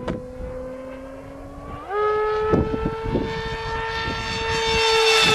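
Brushless electric pusher motor (Turnigy 3648-1450) and propeller of a scratch-built foam RC jet in flight. A steady whine jumps up in pitch about two seconds in as the throttle opens, then grows louder as the plane comes closer.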